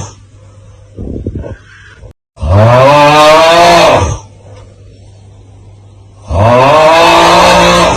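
The 'Aauuggh' snoring meme: a man's loud, drawn-out groaning 'aauuggh' yell that rises and then falls in pitch, heard twice about four seconds apart. Before the first yell comes a brief, quieter rattling snore-like snort.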